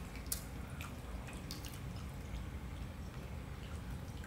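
Faint eating sounds as mac and cheese is eaten with plastic forks from paper cups: a handful of short, sharp clicks and smacks at uneven intervals, over a low steady room hum.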